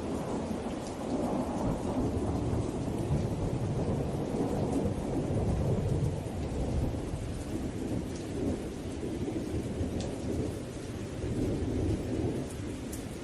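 Steady rain with a deep low rumble that swells through the first half, and scattered sharp drop ticks.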